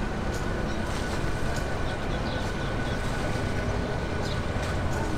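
Jet engines of a wide-body twin-jet airliner running at low power as it taxis on the runway: a steady rumble with a thin, steady whine over it.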